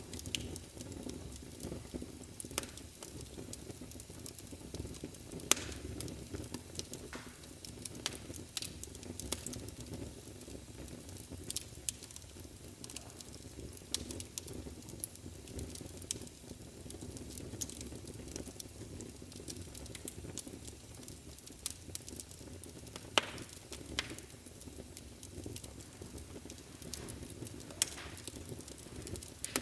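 Wood fire burning in a fireplace: a steady low rumble of flames with frequent crackles and sharp pops, the loudest about five seconds in, about 23 seconds in and near the end.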